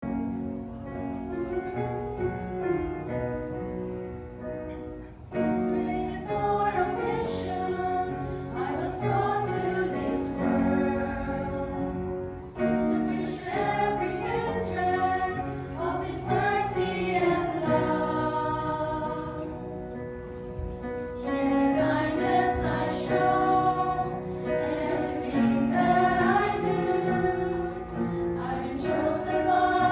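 Women's choir singing in parts, phrase after phrase, with a brief break before each new phrase about five and twelve seconds in.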